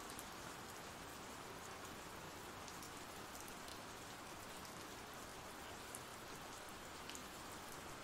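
Faint, steady rain from an ambient rain sound-effect track: an even hiss of rainfall with a few light drop ticks scattered through it.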